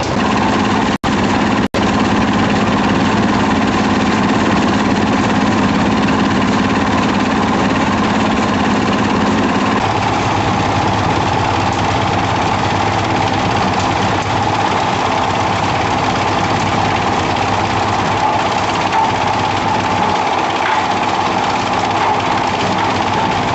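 Construction machinery engines running steadily at a pile-concreting site. The sound drops out twice for an instant about a second in, and about ten seconds in the engine note changes to a lower hum with a higher whine above it.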